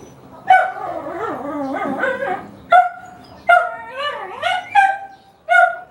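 Dog whining and yelping: a long wavering whine about half a second in, then several short, sharp yelps and whines.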